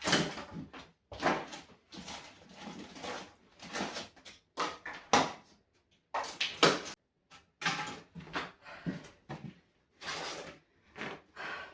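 Old wooden floorboards being prised up and handled: a run of irregular knocks, creaks and scrapes with short gaps between them.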